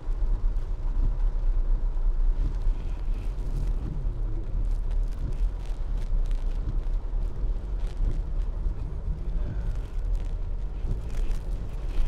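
Steady low rumble of a car driving slowly on a wet road in rain, heard inside the cabin, with scattered faint ticks of raindrops on the windshield, more of them in the second half.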